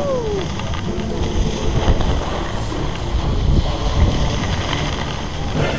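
Wind rushing over the camera microphone while skiing downhill, with the low rumble of buffeting and skis hissing over packed snow. A brief falling tone sounds right at the start.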